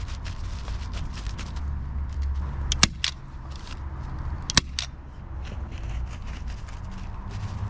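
Polyethylene film crinkling and rustling as it is handled, with two sharp snaps of a hand staple gun about a second and a half apart, fastening the film to the wooden formwork board.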